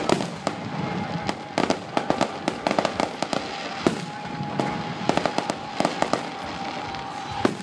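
Aerial fireworks shells bursting: irregular runs of sharp bangs and crackling reports, with single louder bangs about four seconds in and near the end.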